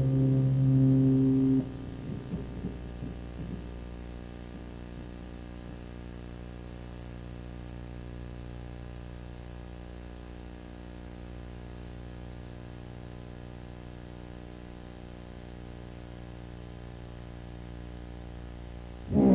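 A loud sustained musical drone cuts off about a second and a half in, leaving a steady low hum with many even overtones, like electrical mains hum. Loud music comes back in right at the end.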